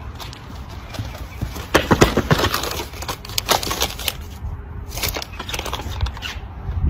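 Brown paper bag being crumpled and shaken in the hands, with irregular sharp crinkles. Wind rumbles on the microphone.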